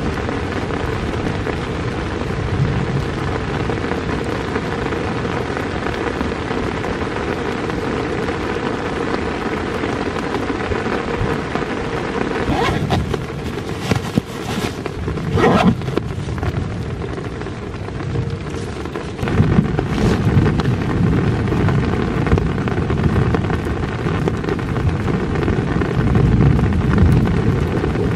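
Steady hiss of rain, with low rumbling in the second half. About halfway through come sharp rustles and clicks of a backpack being unpacked by hand.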